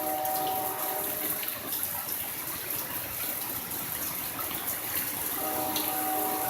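Heavy rain pouring steadily, with a diesel locomotive's air horn sounding a steady chord of several notes: one blast ending about a second in and another starting near the end.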